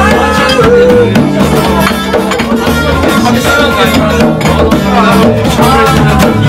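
Live band music: acoustic guitar, electric bass and a djembe hand drum keep a steady groove, with a voice singing a melody over them at several points.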